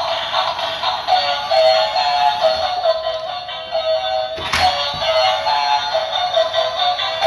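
Electronic tune with a synthetic singing voice played through a toy car's small, tinny speaker, thin with no bass. A single sharp knock sounds about four and a half seconds in, as the moving car bumps into another toy.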